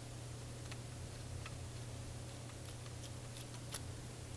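Faint, irregular small clicks and ticks of a small screwdriver and plastic and metal parts as a Canon Rebel DSLR camera body is taken apart, the sharpest click near the end. A steady low hum runs beneath.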